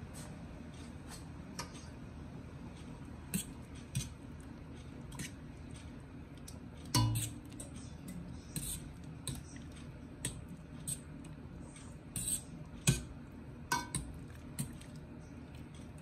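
Stainless steel pasta server clinking and scraping against the rim and sides of a stainless steel pot while stirring thin pasta in water, a few sharp knocks at irregular intervals, the loudest about seven and thirteen seconds in, over a steady low hum.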